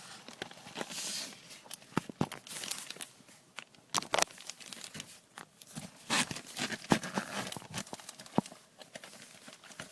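A Louis Vuitton Delightful GM handbag being handled: crinkling rustles with scattered sharp clicks and taps.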